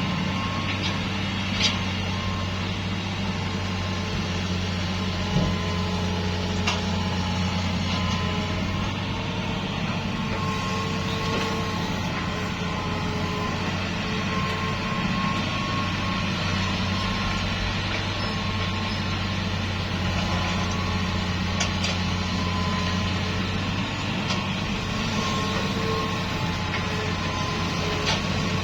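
Heavy diesel construction machinery running steadily, with a low, even engine drone. A few short knocks come in the first several seconds.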